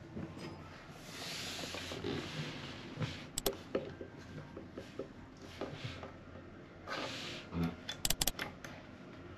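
Handling noise in a small cabin: rustling and a few light clicks, with a quick run of clicks near the end, over a faint steady low hum.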